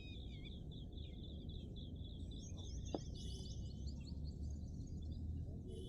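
Small birds chirping in quick repeated trills, with higher chirps joining in midway, over a low rumble. A single sharp knock comes about three seconds in.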